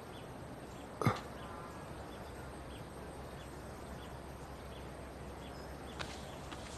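Quiet outdoor ambience with faint, regularly repeating high chirps, and one sharp knock about a second in.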